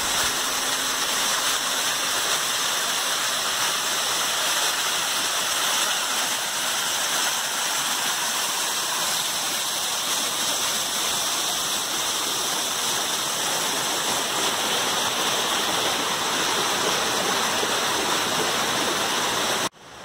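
Waterfall cascading over boulders into a rocky stream: a steady rush of falling and running water, the falls running full after recent rain. It cuts off abruptly just before the end.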